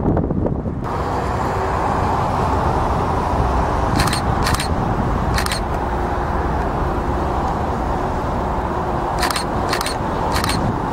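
Distant airliner jet engines running, a steady rumble and rush mixed with wind on the microphone. Six short clicks cut through it, three about four to five and a half seconds in and three near the end.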